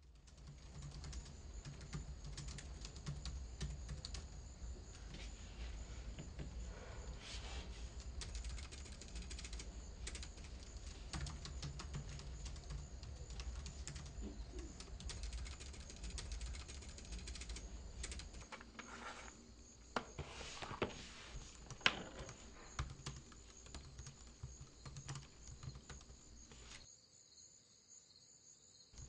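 Typing on a laptop keyboard: a fast, irregular run of key clicks, with a few sharper strokes a little over two-thirds of the way in. A low hum runs underneath and stops about two-thirds of the way through.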